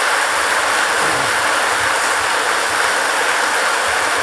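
A large audience applauding in a hall, a dense, steady clapping.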